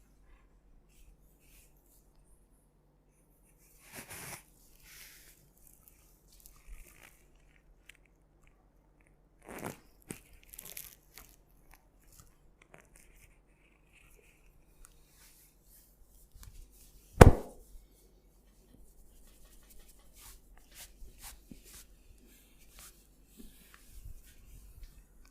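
Hands massaging a head: rubbing and kneading through hair and over skin with scattered crackling, coming and going in short spells. One much louder sharp impact comes about two thirds of the way through.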